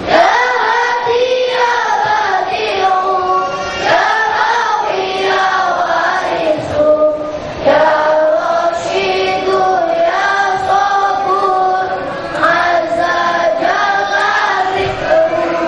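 A large choir of boys singing together in unison, a melody of long held notes that step up and down.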